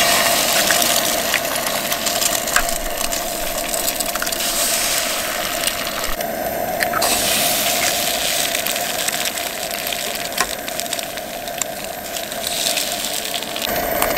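Eggs and sliced sausage sizzling in a hot frying pan on a Coleman camp stove, with scattered crackles of spattering fat over the steady rush of the stove's burner.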